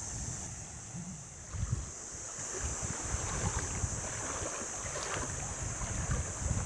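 Sea waves washing and lapping at a sandy beach, with wind gusting on the microphone and a steady high hiss.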